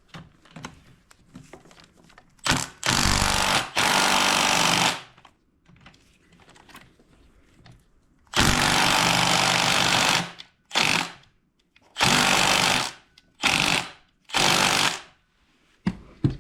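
Power impact wrench hammering in about seven bursts of up to two seconds each with short pauses between them, loosening the cylinder head bolts.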